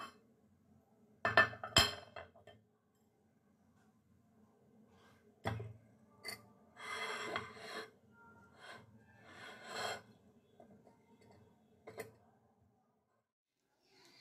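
A glass cup and glass plate being set down and handled on a countertop, making sharp clinks and knocks. The loudest two come about a second in, with more spread through the rest.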